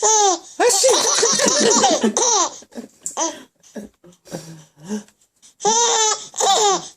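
Baby laughing hard in high-pitched giggles: a dense run of laughs at first, then short separate bursts, then two longer peals near the end.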